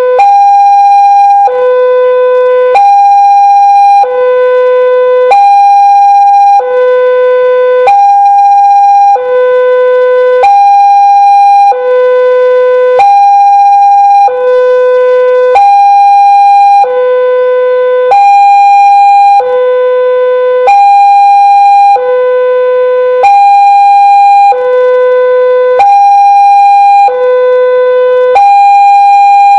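Railway level-crossing alarm at Surabaya Gubeng, the new Daop 8 Surabaya-style tone, warning that a train is approaching. Two steady tones alternate high and low, each held for about a second and a quarter, repeating without a break.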